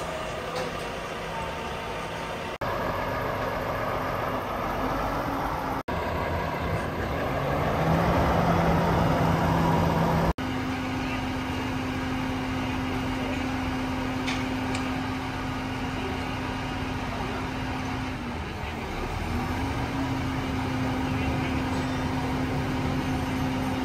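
Truck engine running steadily to drive its loader crane's hydraulics, a steady hum that steps up in pitch as the crane works and dips briefly once later on.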